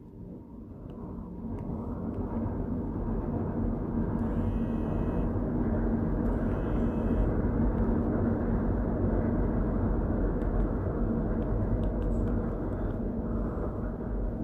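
Steady low rumbling noise that builds over the first two seconds and then holds, with two brief faint high-pitched tones about four and six and a half seconds in.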